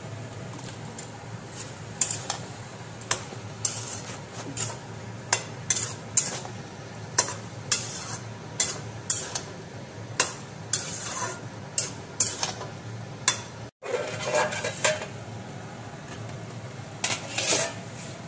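Spatula scraping and clacking against a metal kadai as a cabbage curry is stirred, a sharp clack about every half second to second. Under it runs a low steady hiss, and everything cuts out for an instant about fourteen seconds in.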